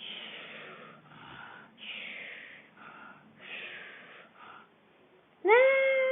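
A voice sobbing: a run of breathy, gasping sobs, then a loud, steady crying wail about five and a half seconds in.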